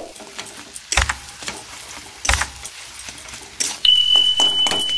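Steel spoon stirring a thick vegetable filling in an aluminium kadai, knocking and scraping against the pan several times. Near the end a steady high-pitched tone comes in.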